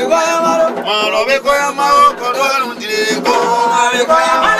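A male voice sings a traditional Yacouba song in long held and gliding notes over the music.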